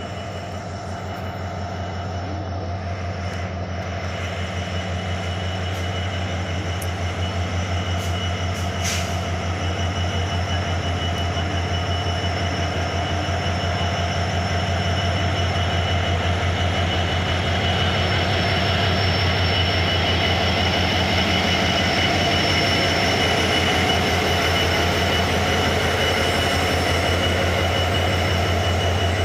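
Diesel locomotive running as it hauls a passenger train past, its steady engine hum growing louder as it approaches, with a steady high-pitched squeal from the wheels.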